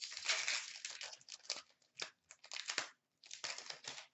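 A foil trading-card pack and cards crinkling and rustling as they are handled, in several short bursts with a few sharp clicks.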